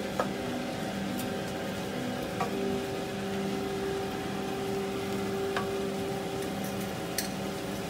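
Mutton pieces, chopped onions and spices sizzling in a non-stick frying pan while being stirred and turned with a wooden slotted spatula, with a handful of light clicks of the spatula against the pan.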